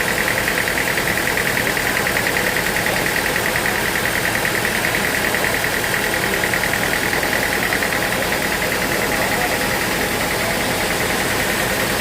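Sawmill machinery running steadily, with a fast, even pulsing.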